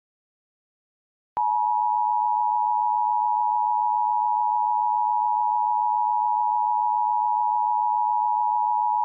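Emergency Alert System attention signal: a steady two-pitch tone that starts about a second and a half in and holds at one level, announcing the alert message that follows.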